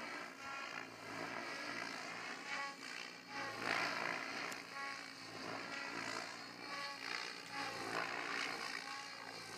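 Soxos 700 RC helicopter flying high overhead, its rotor and drivetrain whine swelling and shifting in pitch several times as it is thrown through flips.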